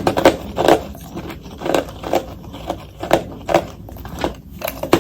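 A person biting and chewing ice, a quick series of crisp crunches about two a second, played back sped up.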